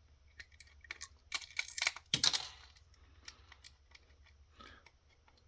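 Scattered light clicks and taps of small parts being handled as a headset is opened up by hand, clustered about one and a half to two and a half seconds in, with the loudest click about two seconds in.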